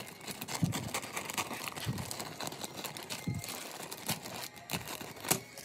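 Clear plastic bags holding the model kit's plastic runners crinkling and rustling as they are picked up and handled, with three dull knocks in the first half.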